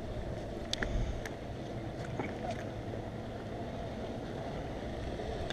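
Steady low rumble of wind on the microphone, with a few light clicks about a second in and again a little later as a pocket knife is opened and handled to cut the fishing line.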